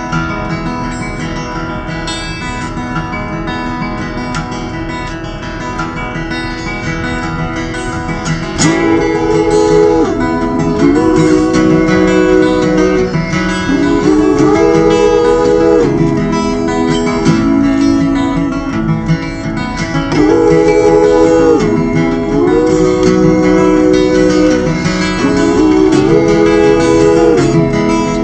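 Live folk band playing an instrumental passage: acoustic guitar, joined about eight seconds in by a louder lead melody of long held notes that slide between pitches, in repeated phrases.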